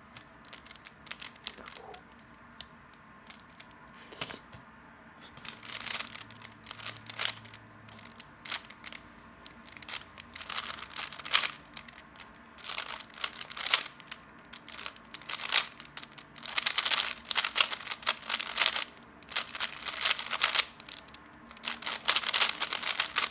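3x3 Rubik's Cube turned fast in a speedsolve: the layers clack in quick bursts of clicks, with short pauses between bursts.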